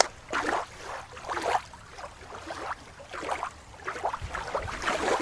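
Water sloshing and splashing in a run of soft swishes, roughly two a second, as a toy sea animal is moved about in the water.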